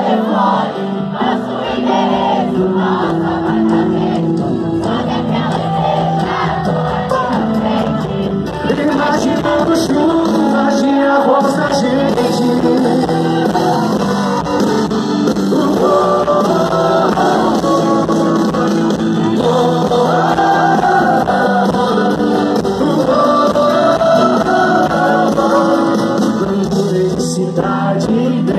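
Live sertanejo band music at a loud outdoor concert, with singing over it and the crowd joining in, heard from within the audience.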